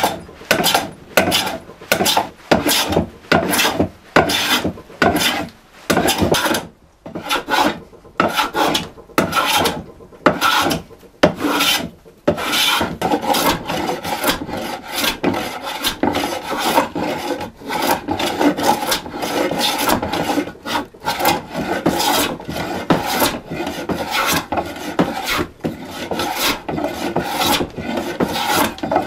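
Rough scraping strokes of a two-handled hand tool worked across an oak board, shaping the wood. The strokes come apart at first, about one or two a second, then after about twelve seconds turn fast and run almost together.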